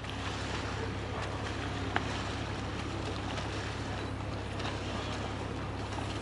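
Cruise boat's engine running steadily, a constant low hum under a light wash of wind and water noise.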